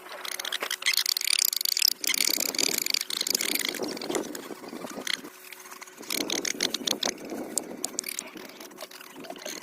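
Poultry pecking at and eating fruit: quick clicking pecks and scratchy noise, with a stretch of high chirping calls about a second in.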